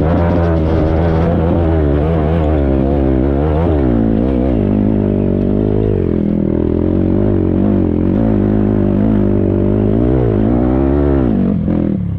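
Motorcycle engine running under way, its pitch rising and falling as the throttle varies, with a drop in revs about four seconds in and another near the end.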